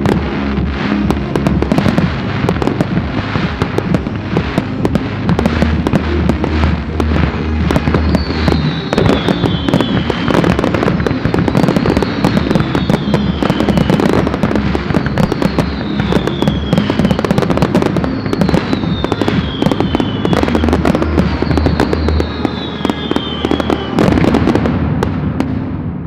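Dense fireworks barrage: aerial shells bursting and crackling in rapid succession, over music with a steady low beat. Through the middle, a high falling tone repeats about every two seconds, and one last loud burst near the end gives way to fading crackle.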